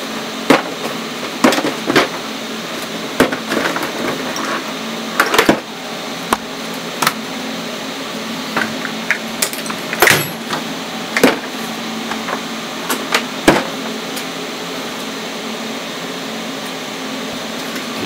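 Irregular knocks, clicks and clatters of hard objects and tools being handled and set down while rummaging, over a steady low hum.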